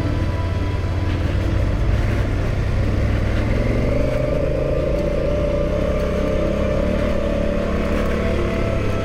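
Adventure motorcycle engine running at a steady pace on a dirt road, with road and wind noise.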